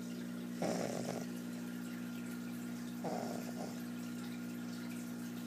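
Pug puppy snoring in its sleep: two rough snores about two and a half seconds apart, each about half a second long, over a steady low hum.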